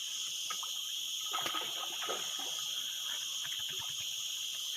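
Steady, high-pitched insect chorus, with a spell of water splashing and sloshing about a second and a half in.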